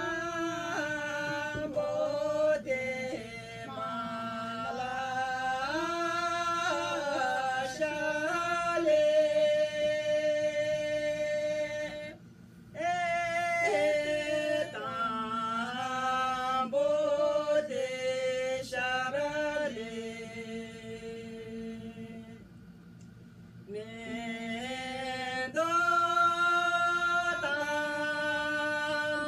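Women singing a song unaccompanied, with long held notes that step up and down. There is a short break about twelve seconds in, and a quieter stretch a little after twenty seconds.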